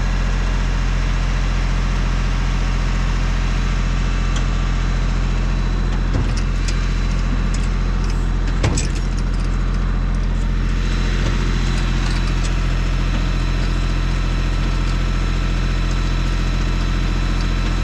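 An engine running steadily at idle, with a few short knocks, the sharpest about nine seconds in.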